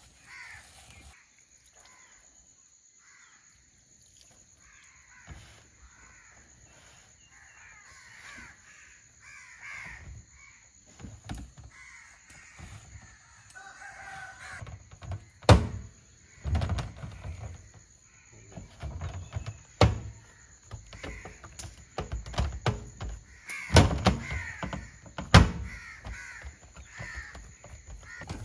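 Crows cawing over and over, with several sharp knocks and thuds in the second half, the loudest of them about halfway through.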